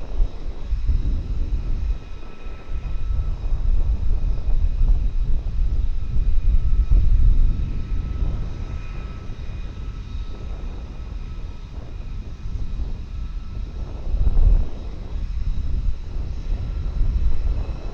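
Fighter jet engines rumbling as the jet passes, with a faint steady whine above the low roar. The sound swells loudest around the middle and briefly again near the end.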